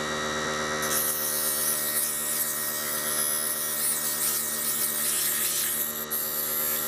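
Small electric motor of a mini wood lathe running steadily with a hum and whine. From about a second in, sandpaper held against the spinning wooden blank adds a hiss as the last bit is taken off to bring it to size.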